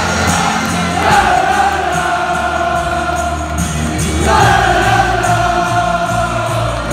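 Football stadium crowd singing together in unison, two long drawn-out phrases that each sink a little in pitch.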